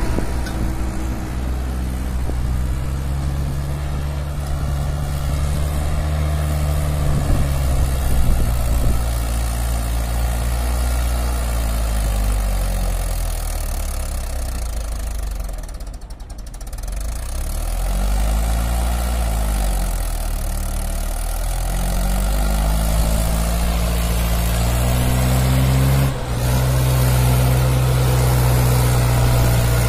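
Mahindra 575 DI tractor's four-cylinder diesel engine working under load as it hauls a fully loaded sand trolley, its pitch rising and falling with the throttle. The sound dips briefly about halfway and breaks off sharply for a moment past three-quarters.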